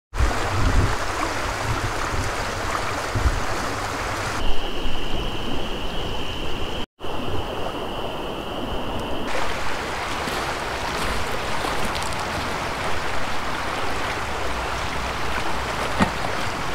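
Steady rushing of a shallow river flowing over stones. For several seconds in the middle a steady high whistle sits over the water noise, broken once by a brief cut.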